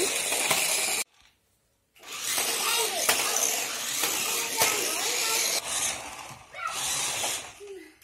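Battery-powered remote-control stunt car (Monster Tornado Extreme 360) running, its small electric motors and plastic gears whirring in bursts, with faint child voices behind. The sound cuts out completely for about a second near the start and dips again near the end.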